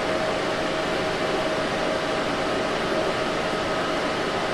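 Steady fan-like noise with a constant mid-pitched hum from a running 1000 W ZVS induction heater rig and its water cooling, heating sheet steel in a pancake coil.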